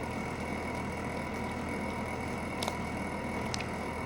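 Steady low hum and hiss of background noise, with two faint short clicks near the end.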